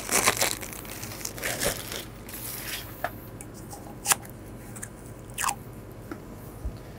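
Clear plastic wrapping crinkling as it is pulled off a stand-up paddleboard hand pump, followed by three sharp clicks as the pump's handle and fittings are handled.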